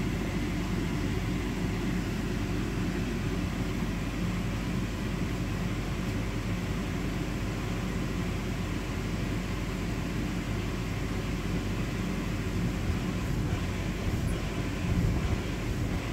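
Bounce house inflation blower running steadily: a continuous low hum and rush of air from its electric fan keeping the inflatable pumped up.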